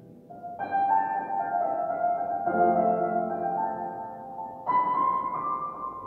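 Grand piano played slowly: sustained chords struck about every two seconds, each left to ring on.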